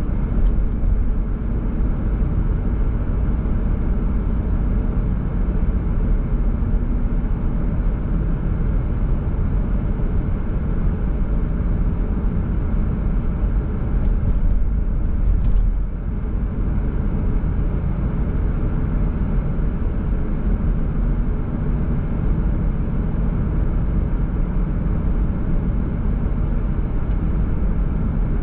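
Car driving along a road: steady low rumble of tyre and engine noise, dipping slightly in level about halfway through.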